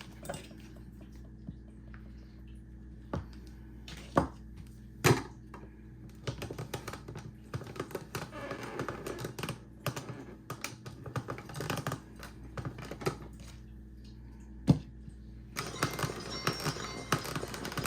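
Hand grating a block of hard Parmesan cheese: a run of quick scraping rasps and clicks, with a few separate sharp knocks.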